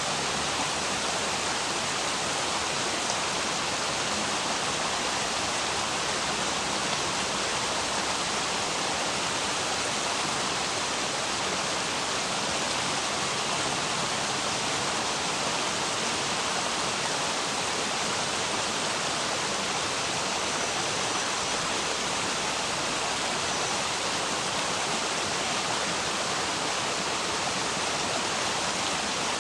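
River water rushing in a steady, even roar of flowing water.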